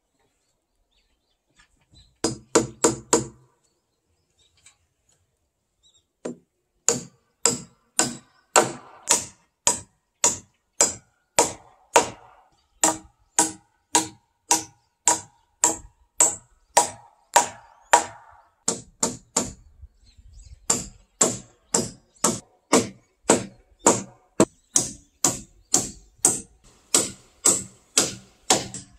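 Repeated blows of a hand tool on a peeled pine log rafter: a quick burst of four strikes about two seconds in, then a long, steady run of strikes at about two a second.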